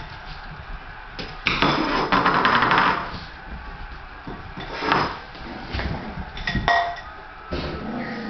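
A plastic basket clattering and scraping on a tile floor as it is pushed about, a dense rattle of knocks lasting about a second and a half, starting about a second and a half in. Further single knocks come about five and about seven seconds in.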